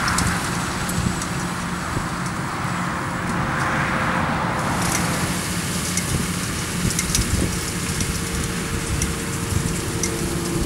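John Deere 7830 tractor's six-cylinder diesel running steadily under load as it pulls a Krone Swadro rotary rake through cut grass. Over the steady engine hum, a hiss swells and fades every few seconds.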